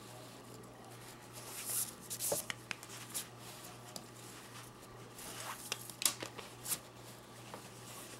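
Paracord rustling and sliding through the fingers as cobra-stitch knots are pulled tight, in irregular bursts with a few sharp ticks, over a steady low hum.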